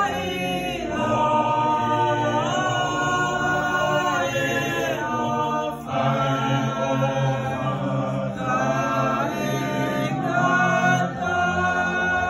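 Church choir singing a hymn in harmony, many voices holding long notes and sliding between them, with brief breaths about halfway through and near the end.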